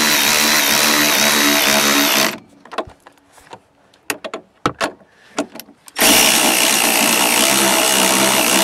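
Power ratchet spinning the upper nut down onto a rear shock's stud. It runs steadily with a high whine for about two seconds, then there are a few seconds of light clicks and knocks as the socket is taken off and put back on, then it runs again for about two and a half seconds and stops near the end.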